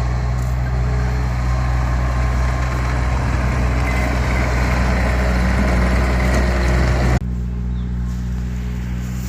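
Diesel dump truck engine running steadily, a low hum with a broad rushing noise over it; the rushing stops abruptly about seven seconds in, leaving only the engine's hum.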